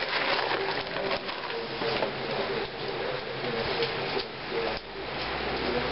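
Heavy rain falling steadily, with many sharp crackles from the wood fire burning in a rocket stove.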